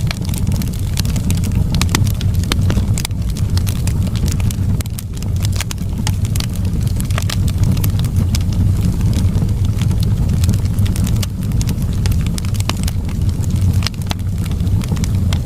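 Wood fire burning in a fireplace: frequent sharp crackles and pops, irregularly spaced, over a steady low rumble of the flames.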